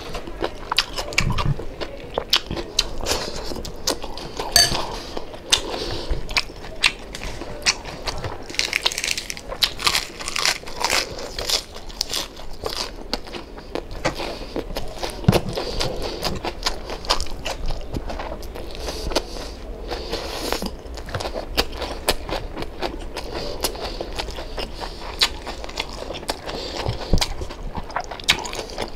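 A person chewing and biting crispy pata, deep-fried pork knuckle, the crackling skin crunching between the teeth in many small irregular crunches.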